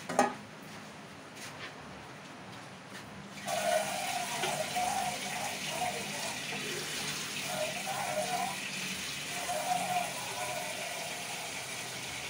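A metal clank as an aluminium saucepan is lifted off the stove grate. Then, about three and a half seconds in, tap water starts running steadily into the pan.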